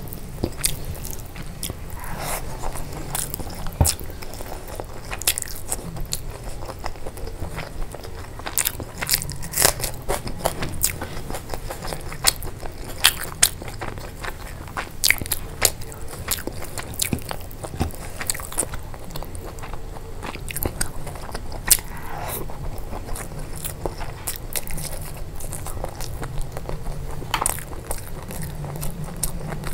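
A person chewing and biting food close to the microphone, with many sharp, irregular clicks through it.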